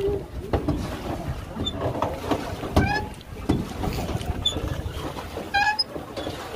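Rowboat under way on a lake: irregular knocks and water noise, with a short high squeak repeating about every three seconds.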